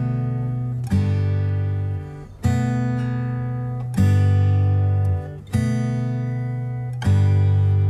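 Background music: an acoustic guitar strumming slow chords, each chord left to ring and fade before the next strum about every one and a half seconds.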